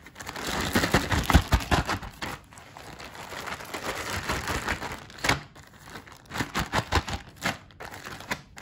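Gallon zip-top plastic bag holding uncooked bow-tie pasta and paint, being shaken and squished: the plastic crinkles, with irregular sharp clicks as the pasta pieces knock together.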